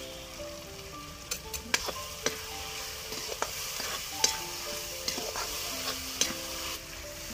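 Metal spatula scraping and knocking against a kadhai, about eight sharp strokes, as onion-tomato masala is stirred. The masala fries in oil with a steady sizzle. Underneath is soft background music with a simple melody.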